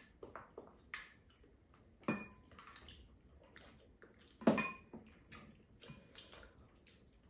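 Metal spoons clinking and scraping against ceramic bowls and a cooking pan during a meal: a string of small clicks, with two louder, briefly ringing clinks about two seconds and four and a half seconds in.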